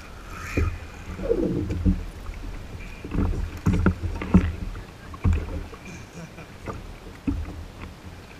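Water slapping against a plastic fishing kayak's hull in choppy sea, with irregular knocks and thumps.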